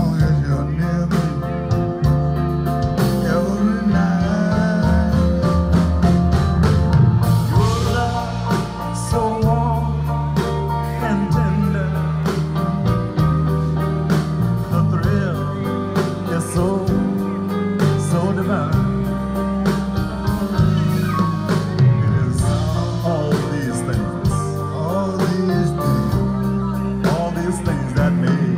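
Live band music: electric bass, organ, piano and electric guitar playing a blues-tinged R&B song, with a strong bass line.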